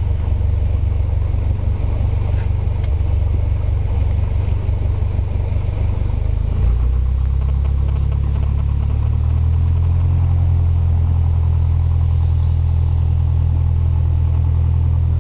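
Single-engine Cessna's carburetted piston engine running at low taxi power, heard from inside the cabin as a steady low drone. The engine note shifts about seven seconds in, then holds steady.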